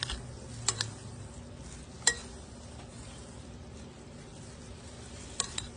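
Chopped chicken, onion and lettuce being stirred together with mayonnaise, with a few sharp clinks and knocks, twice in quick pairs. A steady low hum runs underneath.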